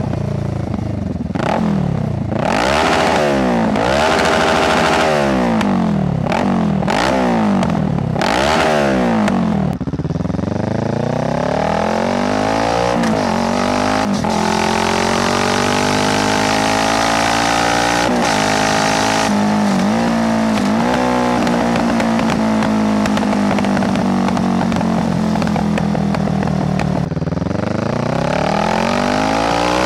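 2018 Kawasaki Z650's parallel-twin engine through an Ixil full exhaust with no dB killer, accelerating hard. For about the first ten seconds the note rises and drops sharply again and again, as if changing gear in quick succession. It then pulls up slowly and holds a steady cruising note, dipping and rising again near the end.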